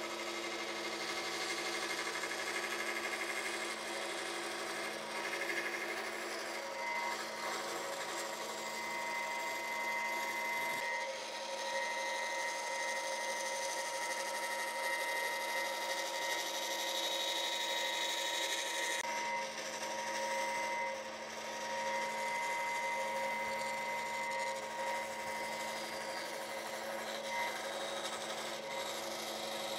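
Bandsaw running with a steady hum and whine, its blade cutting a curve through a glued-up wooden block. The cutting hiss rises and falls as the curve is followed.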